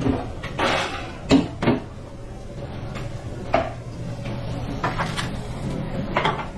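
Kitchen clatter: about six separate knocks and bangs of things being handled, the two loudest close together about a second and a half in, over a steady low hum.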